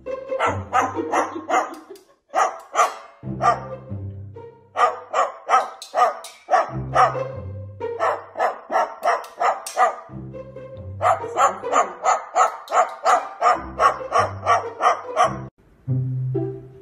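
Music with a bass line and runs of short dog-bark sounds, about four a second, set in time with the beat.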